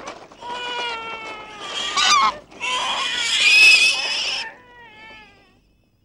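Cartoon baby crying in long, high wails that hold or fall in pitch, swelling to a louder, harsher scream in the middle and dying away near the end.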